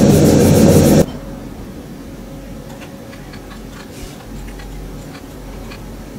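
Sandpaper rubbed on a wooden block in rapid short strokes, a loud scratchy rasp that stops abruptly about a second in. After it, a low steady hum with a few faint scattered clicks.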